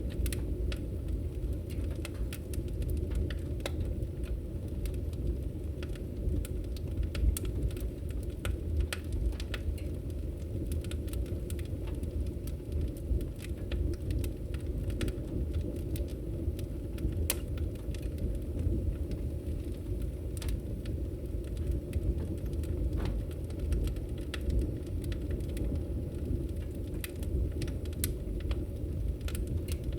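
Wood fire burning in a fireplace: a steady low rumble of flames with frequent sharp crackles and pops of the burning firewood.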